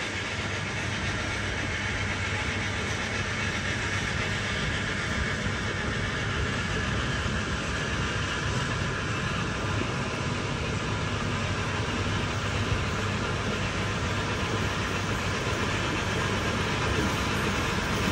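Coal-fired cog railway steam locomotive No. 9 running slowly along the track, a steady steam and machinery noise that grows a little louder near the end as it comes closer.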